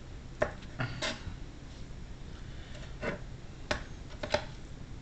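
Scattered knocks and clicks of a knife and chicken breasts handled on a cutting board as fat is trimmed off, about six in all, the sharpest near the end.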